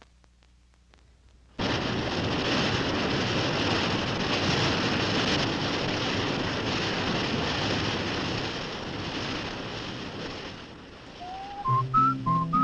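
Loud, even rush of churning propeller wash in a towboat's wake, starting suddenly about a second and a half in and fading near the end. Near the end a whistled tune with low accompanying notes begins.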